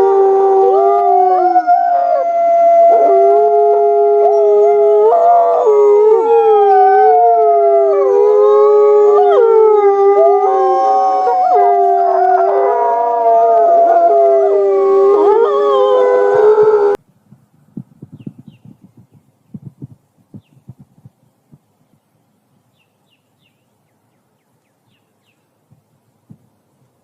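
Several wolves howling together in a chorus of long, overlapping held notes that slide up and down in pitch. The howling cuts off suddenly about 17 seconds in, leaving only faint scattered low knocks.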